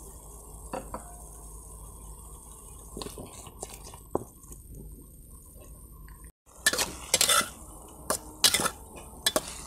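A steady sizzle from a wok stir-fry, then a metal spatula clanking and scraping against the wok, coming thick and loud in the last three seconds.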